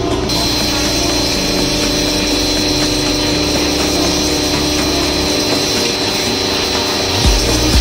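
Daewoo DAX65-100 1600 W electric pressure washer running, its motor and pump giving a steady hum under the constant hiss of the high-pressure water jet.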